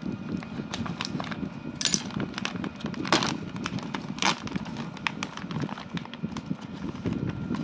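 Clear plastic bag crinkling and rustling as hands pull it open and reach inside, with a run of irregular crackles. Three louder crackles come about two, three and four seconds in.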